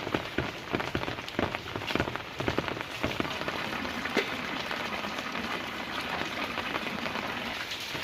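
Steady rain falling on a hard surface, with many distinct drop impacts. The impacts are thicker in the first three seconds.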